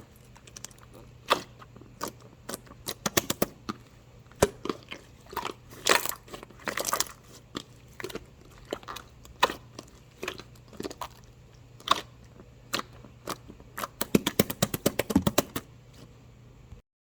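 Crunchy chewing and biting: irregular crisp crunches, with a fast flurry of them near the end before the sound cuts off suddenly.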